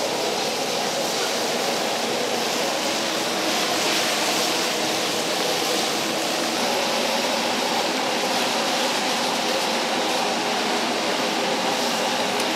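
Large iron wok over a high-flame gas burner: a steady, loud rush of burner flame and food sizzling as a metal ladle stirs vegetables and meat.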